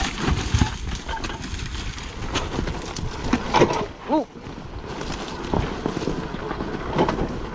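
Irregular crunching and knocking of loose rock and gravel on a steep trail, with a shouted "Oh!" about four seconds in.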